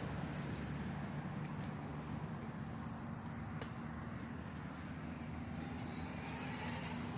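An engine running with a steady low hum, its pitch shifting a little partway through. A single faint click about three and a half seconds in.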